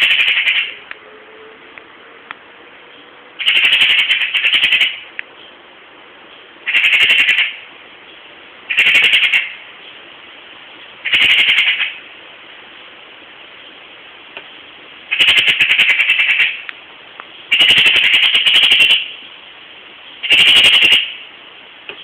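Eurasian magpie's harsh rattling chatter: about eight bursts of rapid clacking notes, each a second or so long, repeated every two to three seconds. It is the magpie's scolding alarm call at a cat, in defence of its territory.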